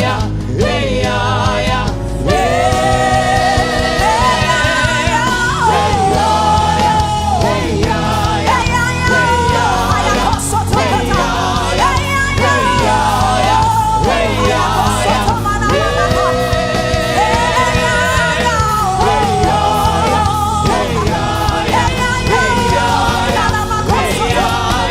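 Gospel worship music: voices singing held, gliding melody lines over instrumental backing with a steady bass.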